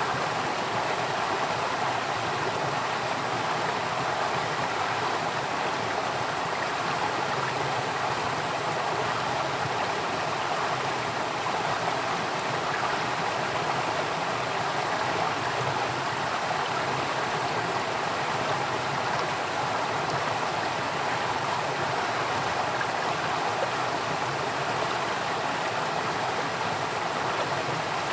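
Flowing water from a stream, a steady rushing and babbling that stays even throughout.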